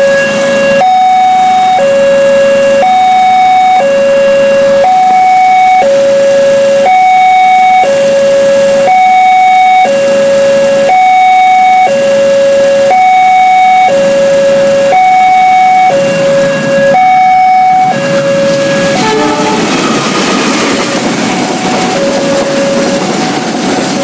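Railway level-crossing warning alarm: two electronic tones, one low and one higher, alternating about once a second. A little past two-thirds of the way through, the rushing noise of a passing train takes over, with the alarm still faint beneath it.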